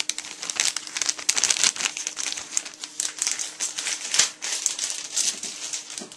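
Packaging around camera accessories being handled and unwrapped: continuous crinkling and rustling with many sharp crackles, which stops abruptly near the end.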